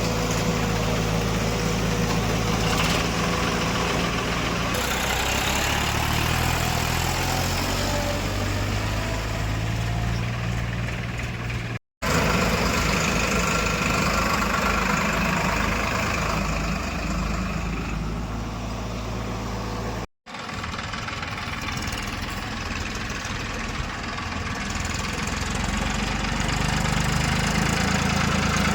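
Diesel engine of heavy farm and earthmoving machinery running steadily, broken off abruptly twice by cuts.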